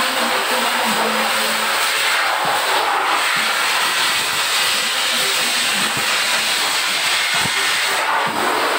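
Hose-type pet blow dryer blowing air onto a wet dog's coat: a loud, steady rush of air.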